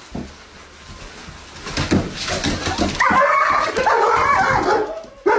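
A dog whining and yowling in a long wavering run from about three seconds in, after a few soft knocks.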